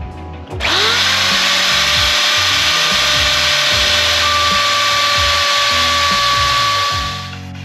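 Hand-held electric router switched on about half a second in: its motor whine rises, then runs steady while it takes a shallow shaving for a hinge rebate in the teak hatch piece. Near the end it is switched off and winds down.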